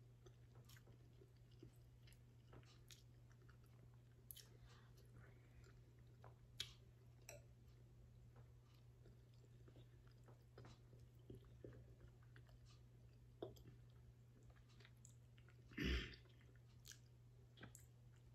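Faint chewing and mouth clicks of a person eating a soft tortilla taco of chicharrón salsa, with scattered small smacks and one louder short noise about sixteen seconds in.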